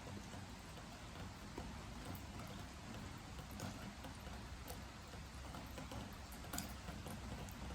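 Steady rain hissing, with water drops tapping irregularly on a wooden deck. One tap about six and a half seconds in is sharper than the rest.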